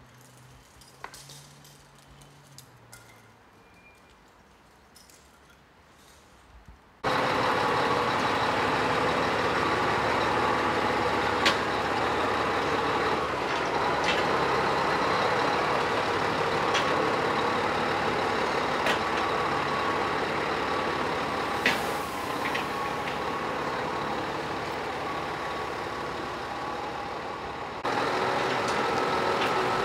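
Scania truck's diesel engine running close by as the tractor unit pulls a flatbed trailer. The sound is steady and loud, with a few sharp clicks and a brief hiss about two-thirds of the way in. The opening seconds are much quieter, and the engine comes in abruptly about seven seconds in.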